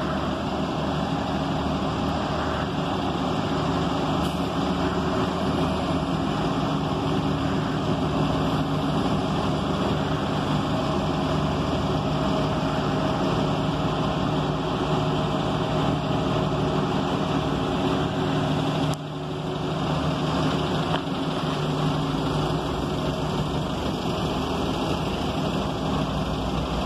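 Several city transit buses idling in a queue: a steady low engine drone.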